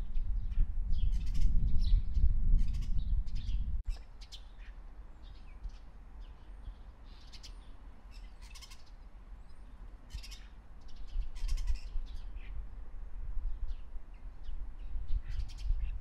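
Birds giving short calls every second or so. Beneath them is a low rumble of wind on the microphone, which drops away suddenly about four seconds in and returns more lightly later.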